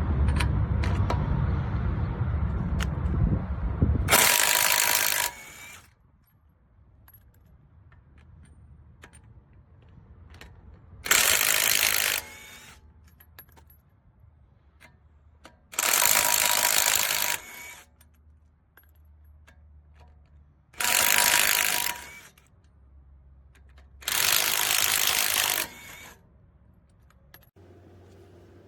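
AOBEN 21V cordless impact wrench triggered five times in short bursts of about a second each, its motor and hammer mechanism running with a steady whine. The owner says the wrench is not working: it would not remove a lug nut. A loud low rumble fills the first four seconds.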